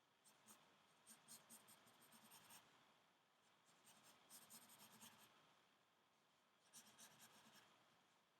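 Faint scratching of drawing strokes by hand: quick strokes in four short runs, with pauses between.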